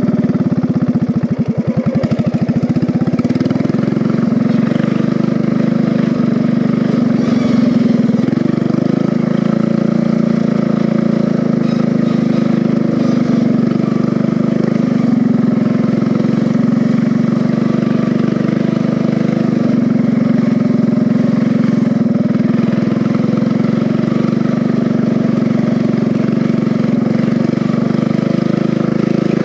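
Small engine of a home-built riding-mower racer running steadily under load while it is driven in third gear.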